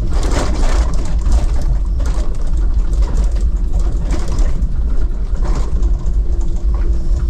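A car driving, heard from inside the cabin: a steady low engine and road rumble with a faint constant hum, broken by frequent short knocks and rattles.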